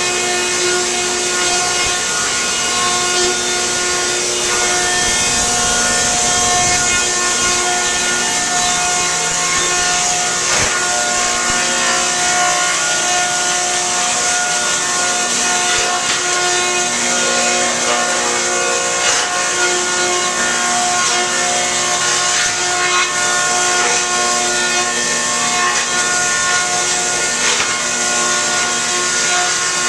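Newman M68 wood planer and its trim-saw line running: a loud, steady machine whine made of several pitched tones that drop in and out, over a constant hiss.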